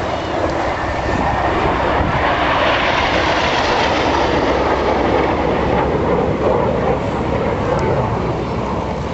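Red Arrows BAE Hawk T1 jets flying past: a jet rush that swells over the first few seconds, holds, then slowly fades.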